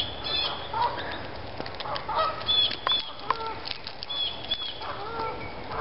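Canada geese honking in a series of short calls, with a few sharp clicks between them.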